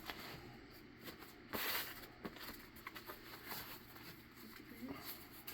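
Faint handling noise: one short rustle about one and a half seconds in and a few light clicks.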